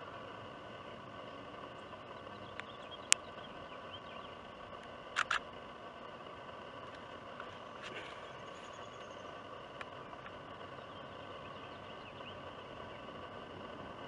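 Outdoor ambience before a storm: a steady hiss with a faint even drone. Sharp clicks cut through it, a loud single click about three seconds in and a quick double click about two seconds later, with a few faint chirps in between.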